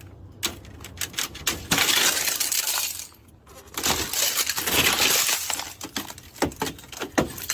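Thick ice glaze cracking and shattering off a van's door as it is forced open: a few sharp cracks, then two long spells of crunching, tinkling breakage with a short pause between, and scattered cracks near the end.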